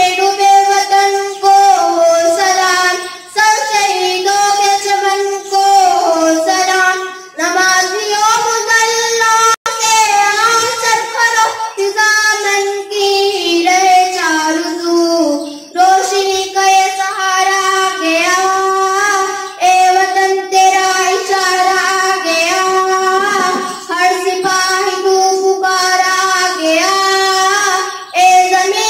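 A boy singing solo into a handheld microphone in a high voice, with long held notes and short breaks for breath, and no accompaniment heard.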